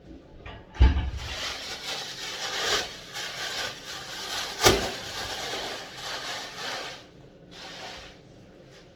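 Household cleaning: a rasping rub and scrape for about six seconds, with a knock about a second in and another a little before the middle, then a few fainter rubs near the end.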